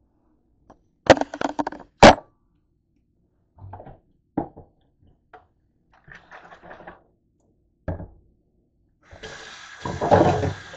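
Hard kitchen items knocking and clattering at a stainless steel sink, a quick run of sharp clacks about a second in and scattered lighter knocks after. Near the end the kitchen faucet is turned on and water runs steadily into the steel sink.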